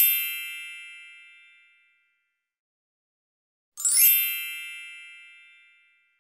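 Two shimmering chime sound effects, each a quick upward sweep of bell-like tones that rings out and fades over about two seconds. The second comes about four seconds in, after a gap of silence.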